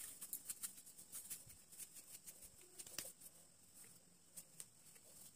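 Faint, irregular light clicks and taps of a metal fork pressing a crisscross pattern into a soft semolina cutlet patty and handling patties on a plate, thinning out after about three seconds.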